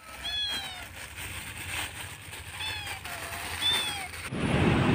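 A cat meowing three times, high calls that fall in pitch, spaced about a second apart. Near the end, steady street traffic noise comes in.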